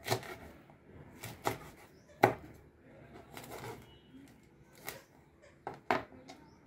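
Kitchen knife chopping drumstick (moringa pod) flesh on a plastic cutting board: about eight irregular knife strikes, the loudest a little over two seconds in.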